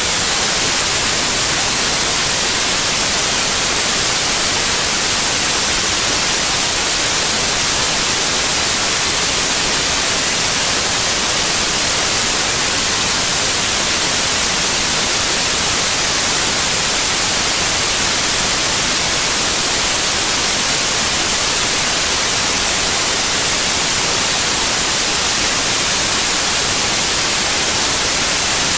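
Steady, loud hiss of static, strongest in the high frequencies and unchanging throughout, typical of an audio track recording no real sound.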